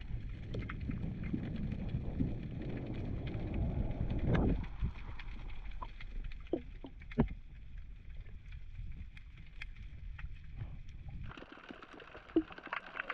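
Underwater sound picked up by a camera: a low rumbling water noise for the first four seconds or so, then quieter water with scattered sharp clicks and a few short bubble gurgles.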